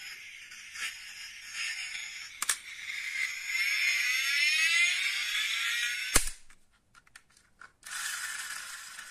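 Die-cast model SUV's built-in light-and-sound unit playing an engine sound through its small speaker. It runs for a few seconds, then revs up in a rising whine, and cuts off with a click about six seconds in. A second burst of the engine sound starts near the end.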